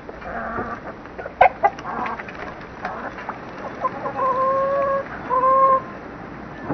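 Chickens clucking, with a few sharp clicks about a second and a half in, then two long, steady-pitched calls, one after the other, about four and five seconds in.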